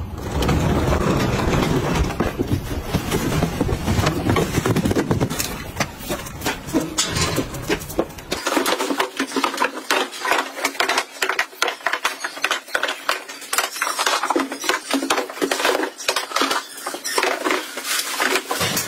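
Cardboard delivery boxes being dragged, tipped and set down on a tiled floor, making a quick, irregular run of knocks, thumps and scrapes from about eight seconds in. Before that there is a steady low rumble.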